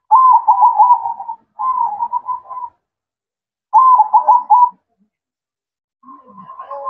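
Zebra dove (perkutut) cooing: three phrases of quick staccato notes in the first five seconds, with short pauses between them.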